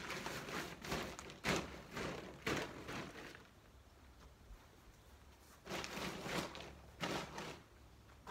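Rustling and crumpling of a deflated air tent's fabric being handled and folded, in irregular bursts with a few sharper thuds, in two spells separated by a pause of about two seconds.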